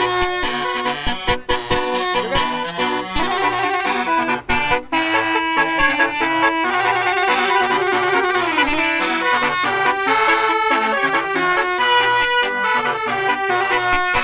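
Multi-tone 'telolet basuri' vehicle horn playing a tune: several pitched notes sounding together and changing from note to note in a continuous melody, with a repeating low pulse underneath.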